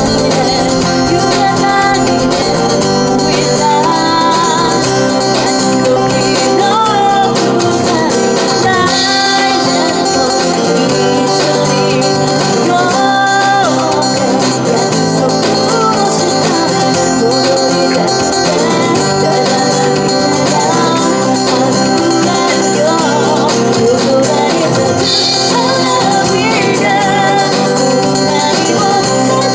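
Live acoustic band: a woman singing a song into a microphone, accompanied by two acoustic guitars, played through small amplifiers.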